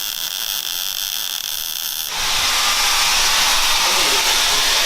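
A power tool cutting an oil pipe: a steady hiss with a thin whine that turns louder and harsher about two seconds in and holds.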